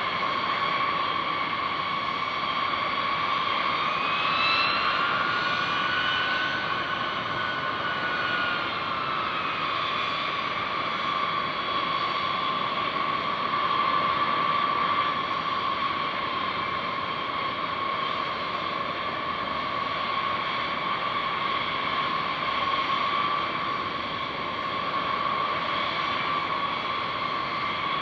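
B-52H Stratofortress bombers taxiing, their Pratt & Whitney TF33 turbofan engines giving a steady high whine over a rushing hiss. A few seconds in, a second engine whine rises in pitch and falls back again.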